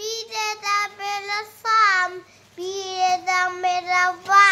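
A young boy singing alone, without accompaniment, in held notes over two phrases with a short pause for breath between them.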